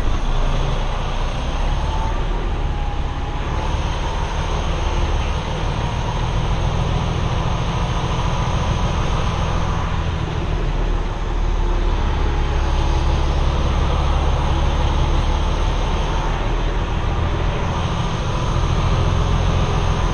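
Semi-truck diesel engine running steadily at low speed, heard from inside the cab as the tractor-trailer is slowly maneuvered.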